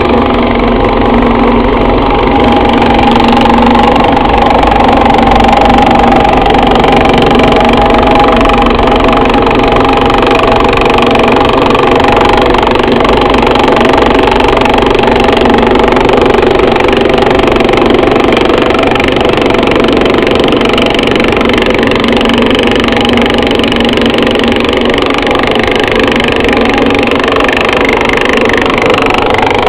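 Yager 11-inch thickness planer running, loud and steady throughout.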